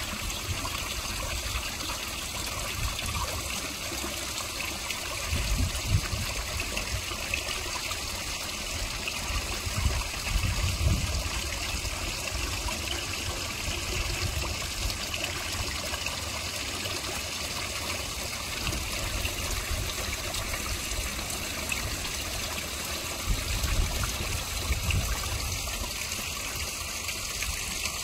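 Small garden pond waterfall spilling over stone ledges into a koi pond, a steady trickling and splashing of water. A few low rumbles come through about five, ten and twenty-four seconds in.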